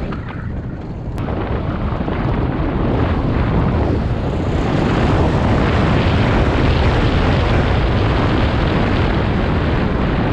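Wind rushing over the microphone and tyres running on loose gravel as an electric dirt bike gathers speed: a loud, even rush that builds over the first few seconds, then holds steady.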